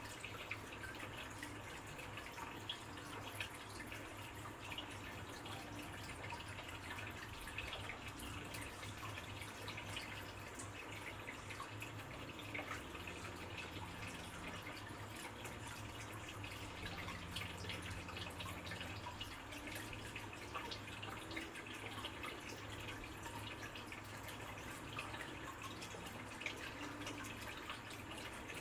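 Faint water trickling and dripping, with many small splashes, over a steady low hum.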